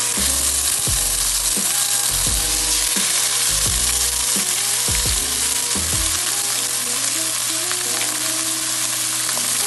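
Pork pieces frying in hot oil and caramelized brown sugar, a steady loud sizzle with stirring.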